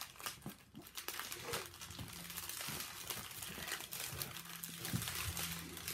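Light crinkling and rustling of small plastic bags of diamond painting drills being handled and shuffled.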